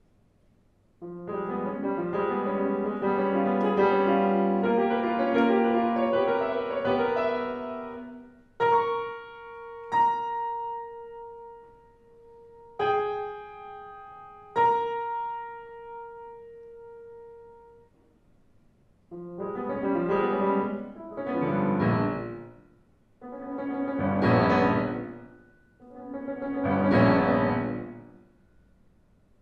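Steinway grand piano playing: a dense run of chords, then several single notes struck and left to ring out. After a short pause come four quick flurries of notes, each growing louder and then fading.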